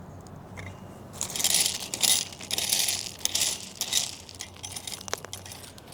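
A run of dry crunching and scraping sounds, dry soil and gravel being disturbed in a garden bed, in several irregular bursts starting about a second in and dying away near the end.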